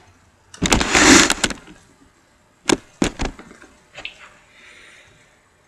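Handling noise close to the microphone: a loud burst of crackling for about a second, then three sharp knocks in quick succession and a softer one, with a faint rustle after.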